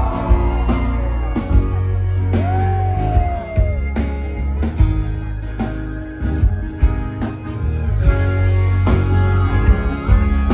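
Live band playing an instrumental break in a country-rock song: a guitar line with a sliding note over steady bass and drums.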